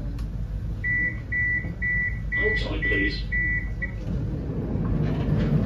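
Tram door warning beeper: a run of about seven short, high beeps of one steady pitch, roughly two a second, stopping about four seconds in. A steady low hum from the tram runs underneath.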